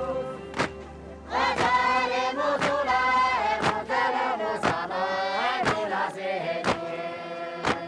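Group of Tibetan workers singing an arga work song, with their stone-headed tampers thudding on the floor about once a second in time with it. The singing comes in about a second and a half in.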